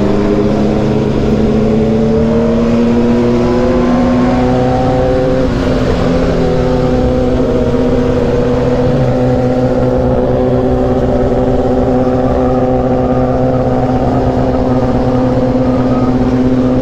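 Sport motorcycle engine running at a steady cruising speed, heard from the rider's seat: one even drone that climbs a little in pitch over the first few seconds, then holds, over a steady rush of wind and road noise.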